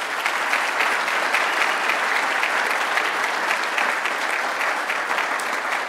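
Audience applauding: many hands clapping in a steady, dense patter that eases off near the end.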